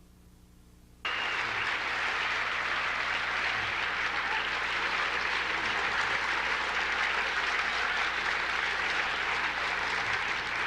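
A large audience applauding. It breaks out suddenly about a second in and carries on steadily.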